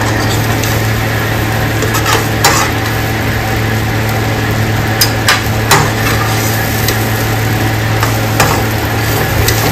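Metal spatula stirring poha in a metal kadhai, with a soft sizzle and several sharp clinks and scrapes against the pan, over a steady low hum.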